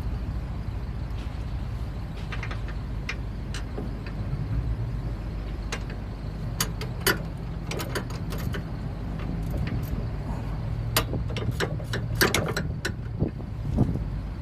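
Hand tools clinking and clicking against metal while work goes on on a car's front suspension, in scattered sharp taps that come thicker in the second half, over a steady low hum.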